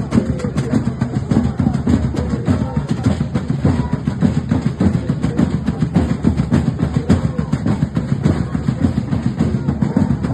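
Music with busy, continuous drumming.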